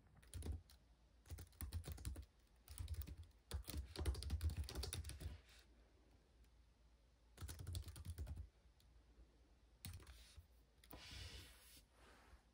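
Typing on a laptop keyboard: quick runs of key clicks in several bursts of one to two seconds, with short pauses between.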